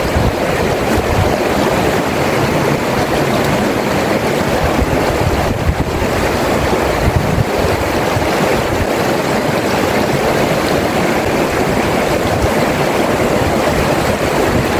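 River water rushing over rocks in small rapids: a steady, loud rushing noise.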